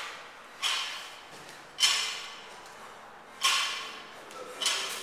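Barbell being lifted in repeated reps: four sharp hits, each with a short ringing tail, about one every second and a half.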